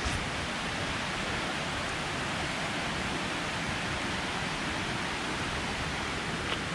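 Steady rushing of a stream flowing over rocks, an even hiss that does not change.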